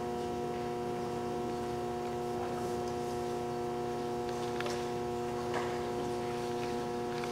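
A steady hum made of several fixed tones, with a couple of faint taps in the second half.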